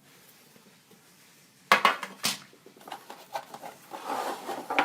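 Metal card tin being handled and set down: two sharp knocks about two seconds in, then lighter clicks and a short rustle near the end.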